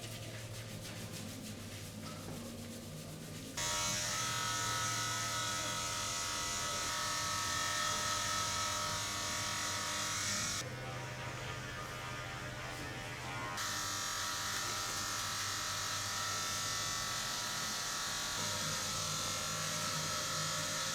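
Steady buzz of a small handheld electric motor, its tone and loudness shifting abruptly a few times.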